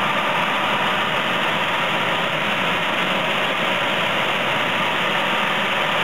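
Manufactured-home furnace blower running, with a steady rush of air blowing out of the fresh-air inlet tube into the furnace plenum.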